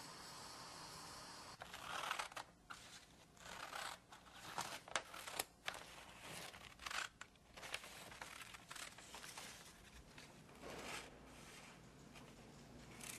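A folded paper clipping being handled, rustling and crinkling in irregular short bursts that begin about a second and a half in, after a faint steady hiss.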